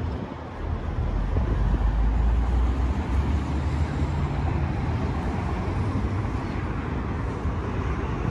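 Car engine running: a steady low rumble.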